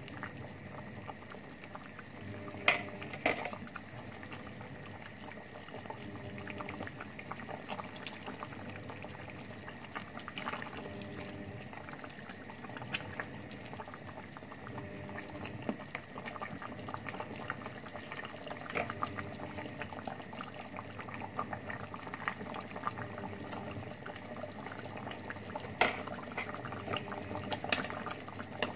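Pot of meat, potato and carrot stew bubbling at a boil while it is stirred, with a few sharp knocks of the spoon against the stainless steel pot, about three seconds in and again near the end.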